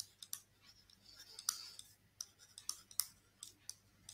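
Faint stylus clicking and scratching on a writing surface while letters are handwritten: irregular sharp taps mixed with short scratchy strokes.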